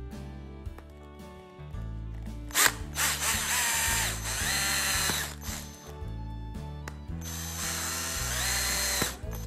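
Cordless drill with a step drill bit boring through the plastic housing of an LED bulb, running twice: for about three seconds from two and a half seconds in, then again near the end, each time spinning up, holding speed and winding down. Background music plays throughout.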